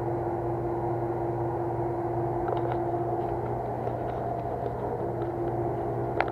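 Steady hum of running boiler-room machinery, such as a pump or fan motor, with a few faint light clicks and one sharper click near the end.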